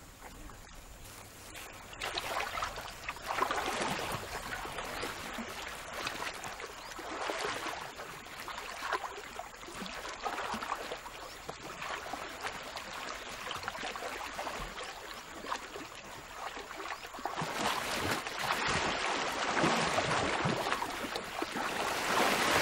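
Water sloshing and splashing as a tiger wades and swims through a pond. It starts about two seconds in, comes in uneven surges, and grows louder near the end.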